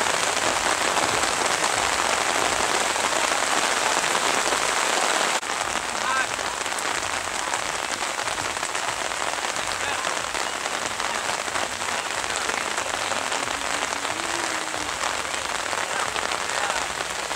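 Steady heavy rainfall, an even hiss of rain on the surface, which drops a little in level at a cut about five seconds in.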